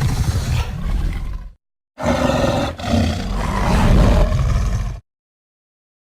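Monster roar sound effects: a roar ends about a second and a half in, and after a short silence a second long, deep roar with a brief break near its start cuts off sharply.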